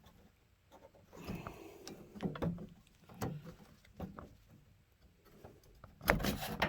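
Hand work on a pickup's front-end parts, likely the tubular steel grille brace being worked loose: scattered knocks, clicks and scrapes, with a louder clatter near the end.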